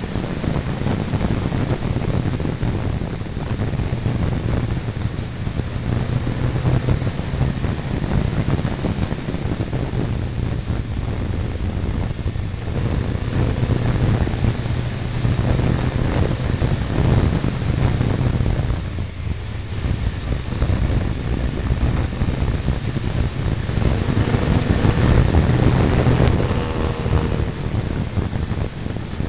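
Triumph Tiger 955i's three-cylinder engine running steadily on the move, mixed with heavy wind noise on the mirror-mounted camera's microphone. The level drops briefly about 19 seconds in.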